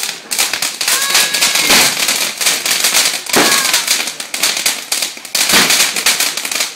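Ground fountain firework spraying sparks with a dense, rapid crackling, a few louder pops standing out among it.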